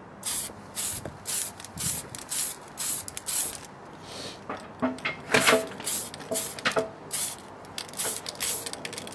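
Aerosol can of polycarbonate spray paint hissing in short repeated bursts, about two a second, as light passes lay a thin coat on the inside of a Lexan RC car shell.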